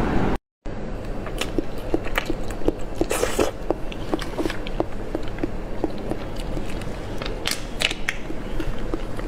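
Close-miked chewing with wet mouth clicks and lip smacks. There is a brief dead gap just under a second in.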